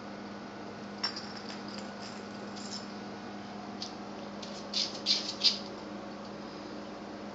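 A dog's claws scratching and clicking on a tile floor: a single click about a second in, then a quick cluster of three or four scrapes around five seconds in as the dog scrambles up from lying on its side. A steady low hum underneath.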